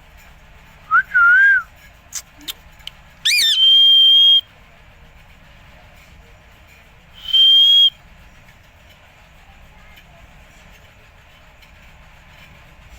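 Green parrot whistling: a short wavering whistle about a second in, a few sharp clicks, then a rising squawk that turns into a held high whistle, and a second held high whistle about seven seconds in.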